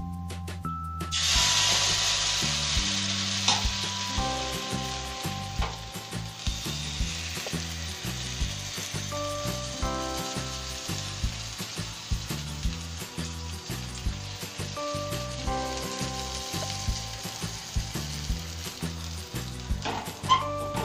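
Rice-flour crepe batter frying in a hot, oiled aluminium kadai. A loud sizzle starts suddenly about a second in and slowly settles to a softer, steady frying hiss. Background instrumental music with a steady beat plays under it.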